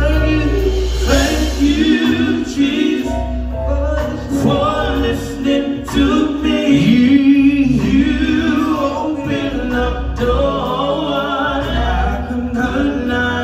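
Two men singing a gospel song into microphones over a live band, with a bass guitar underneath, amplified through the church PA.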